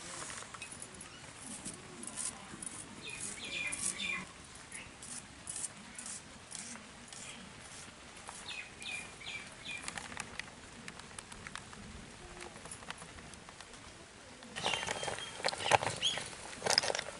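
Onions and vegetables being cut by hand on a blade, a run of small, sharp cutting clicks, with a few birds chirping in the background. Near the end comes a louder burst of scraping and clatter as a metal ladle stirs snails boiling in a clay pot.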